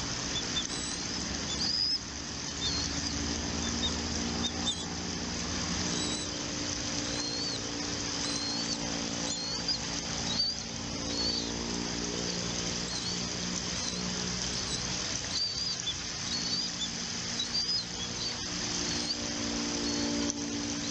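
A bird's short, high chirps, repeated about once or twice a second, over a steady low hum and background noise.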